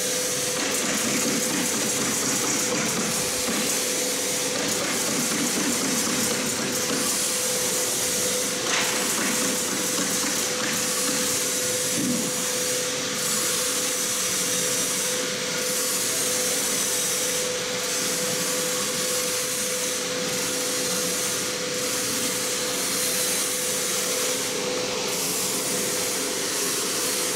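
Steady hiss of running workshop machinery with a constant mid-pitched tone running through it.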